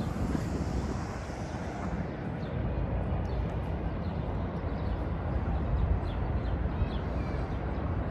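Outdoor city ambience: a steady low rumble with a few faint, short high chirps.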